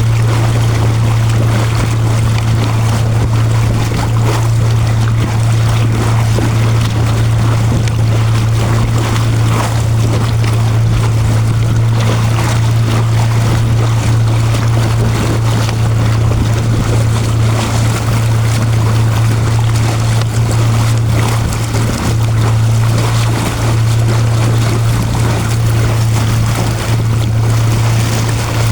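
A small boat's motor running steadily at a constant low hum, with the hiss of water and wind over it.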